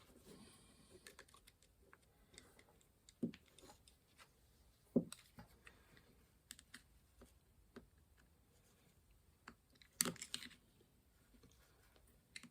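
Sparse light clicks and taps of small metal engine parts being handled on a workbench: a piston and its piston rings being fitted and turned. The clicks are scattered, the sharpest about five seconds in and a short cluster around ten seconds, with near silence between.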